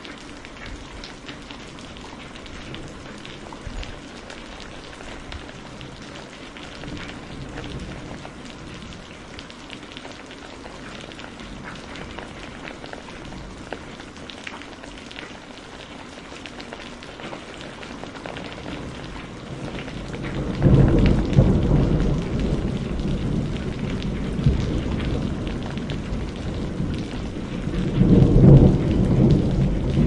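Heavy rain falling in a steady hiss. About two-thirds of the way through, a loud rumble of thunder rolls in, and it swells again near the end.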